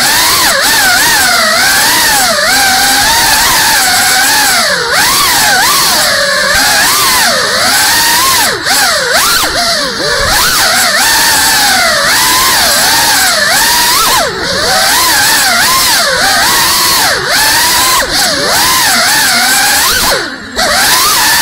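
FPV quadcopter's brushless motors and propellers whining, the pitch rising and falling constantly with the throttle as it manoeuvres. The sound dips briefly a couple of times, near the middle and near the end.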